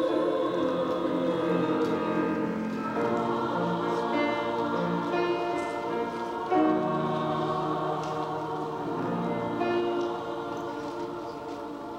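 Women's choir singing held chords in several parts. The singing tapers off near the end as the song closes.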